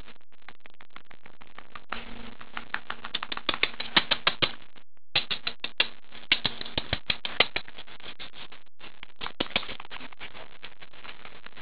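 Quick, irregular runs of sharp clicks and taps right at the microphone, in three clusters with short gaps, from a Pekingese puppy pawing and nibbling at the camera.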